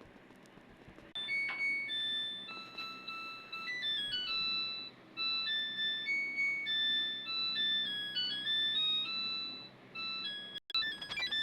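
A washing machine's electronic chime playing a simple melody of clean beeping notes. It starts about a second in, breaks off briefly near the end, then starts again.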